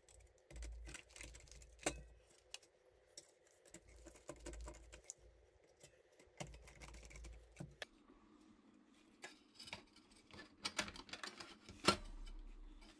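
Faint scattered clicks and taps of a screwdriver and small screws as a replacement fan is screwed onto a PC power supply's sheet-metal cover, with the clicks coming thicker near the end as the metal case is handled.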